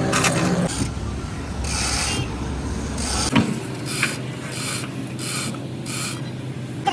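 Short rasping scrape strokes, repeated about twice a second, as a hand tool is worked over a part, with a low engine rumble that dies away about halfway through.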